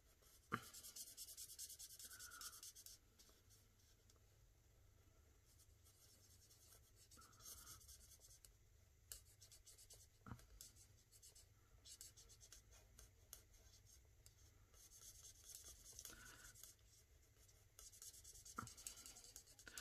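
Faint scratching of a Stampin' Blends alcohol marker colouring on cardstock, in a few short spells, with a few soft clicks.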